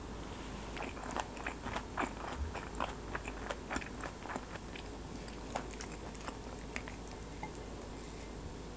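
Close-miked chewing of a mouthful of grilled beef intestine (daechang) rice bowl with raw onion and chives: a quick run of crunchy chewing clicks starting about a second in, thinning out to occasional ones after about four seconds.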